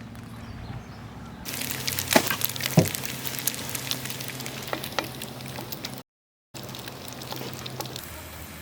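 Food sizzling and crackling in a hot pan, with sharp spits through the hiss. It starts suddenly about a second and a half in.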